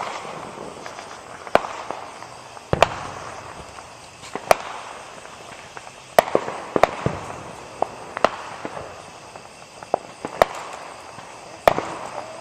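Fireworks going off: a string of sharp bangs and pops at uneven intervals, roughly one every second or so, some louder than others, over a steady background hiss.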